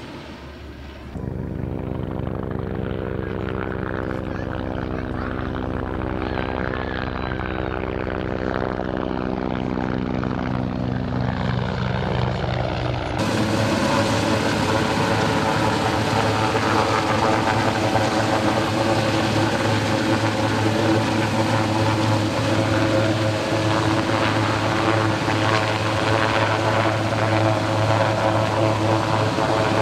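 A propeller aircraft flying past, its steady drone slowly falling in pitch. About thirteen seconds in it gives way to a louder, steady CH-124 Sea King helicopter hovering, its rotor and engines running.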